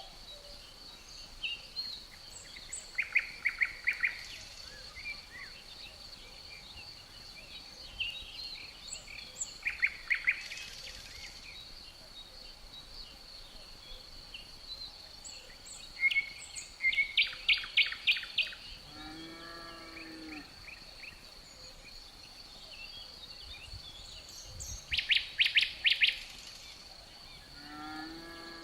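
Outdoor nature ambience: songbirds repeat quick trilled phrases four times over a steady high insect drone. Twice, in the second half, a low drawn-out lowing call is heard, like cattle mooing.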